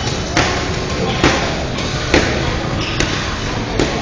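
Sparring strikes landing: sharp smacks of gloved punches and shin-guarded kicks, about five of them, roughly one a second.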